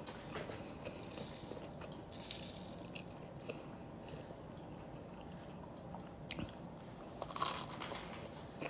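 Someone biting and chewing French bread, with soft crunches from the crust. There is a sharp click about six seconds in, and a louder crunch about seven and a half seconds in.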